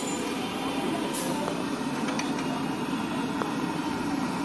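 Steady low rumbling background noise with a few faint light clicks scattered through it.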